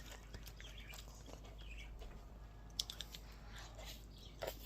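Faint chewing and mouth sounds of someone eating an ice cream cone, with a few small clicks about three seconds in.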